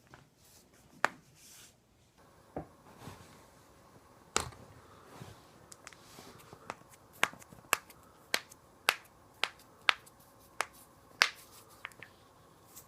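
Back cracking: a series of sharp pops from the spine's joints, a few spread out at first, then coming about twice a second through the second half.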